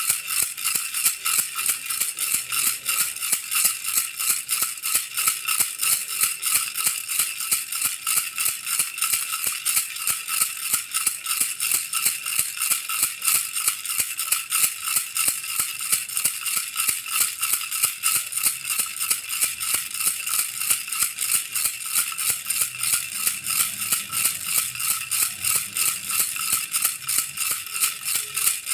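Baby rattle being shaken steadily and rhythmically, with a continuous run of bright, crisp rattling strokes and no pauses.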